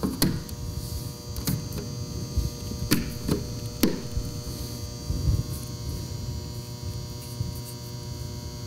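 Several sharp metal clicks and light knocks as small flat head screws are handled and set into a metal wall-outlet faceplate, over a steady hum.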